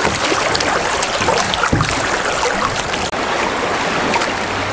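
Fast river water rushing steadily around a canoe running a small rapid, with a few faint splashes from paddle strokes.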